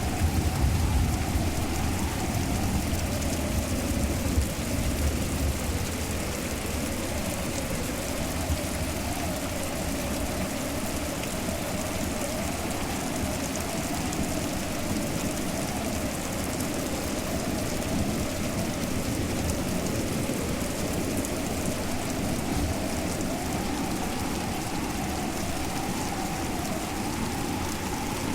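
Steady hiss of falling rain, with a low rumble in the first few seconds and a faint wavering hum beneath it.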